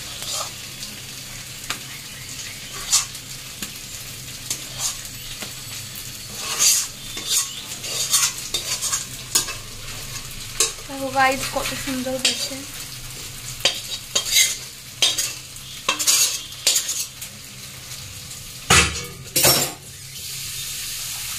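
Metal spatula scraping thick cooked lentil paste out of a pan and knocking it off onto a steel plate, in irregular strokes with a louder pair of knocks near the end, over a steady low hum.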